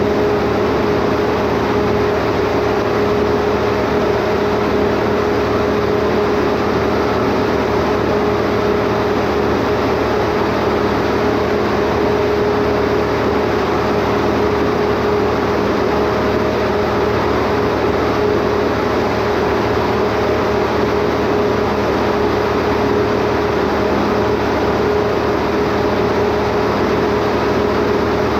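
Standby generator engine running steadily, with a constant hum that holds one pitch throughout.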